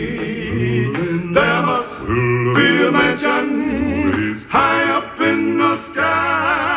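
A recorded song playing over a high-end hi-fi loudspeaker system: male voices singing in a cappella harmony, sustained phrases with vibrato over held low bass notes.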